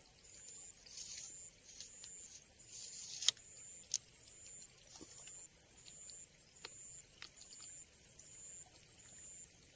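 Insects shrilling high and steady in regular pulses, with two sharp clicks close together about a third of the way in and a few fainter ticks.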